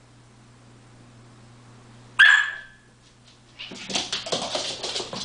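Collie puppy gives one short, high bark about two seconds in, then scrambles across a wooden floor in a burst of clattering, scuffling paw and claw noise.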